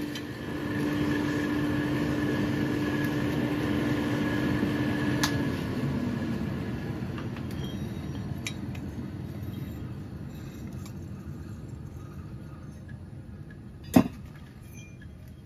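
Electric forge air blower running with a steady hum and rush of air, then switched off about five seconds in, its pitch falling as it spins down. Near the end, a single sharp metallic clank as the hot axe head is set on the anvil.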